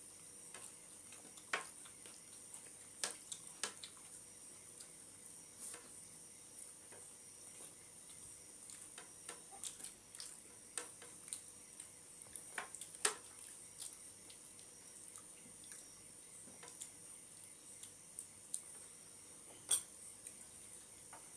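Eating sounds: chewing and wet mouth smacks, with fingers mixing rice on plates, heard as scattered soft clicks and smacks, a few sharper ones standing out, over a faint steady high-pitched hiss.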